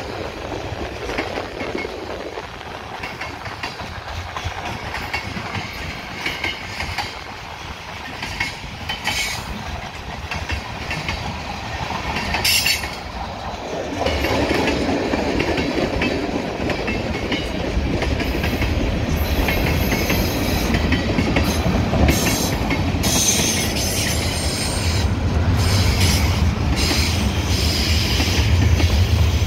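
Freight train of tank cars and covered hoppers rolling past: steady wheel-on-rail noise with wheels clacking over rail joints, louder from about halfway through, and short high-pitched wheel squeals.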